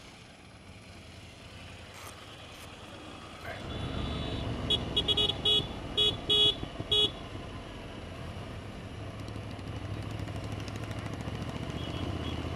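Motorcycle engine and road noise rising as the bike gets under way. About five seconds in comes a quick run of short, loud vehicle-horn toots, roughly seven in two seconds.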